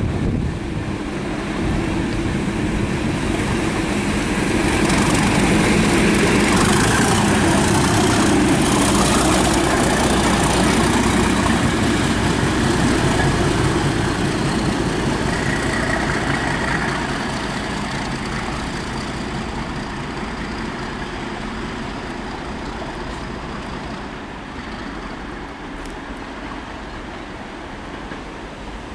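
Class 37 diesel locomotive running past with a coach, engine and wheels on the rails growing louder to a peak about six to twelve seconds in, then fading steadily as it draws away.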